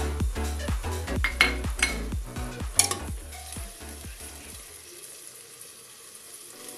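Onion-tomato masala sizzling in an aluminium pressure cooker while a steel ladle stirs it, knocking against the pot a few times. Under it runs electronic background music with a steady beat and bass, which stops about two-thirds of the way through and leaves only the sizzle.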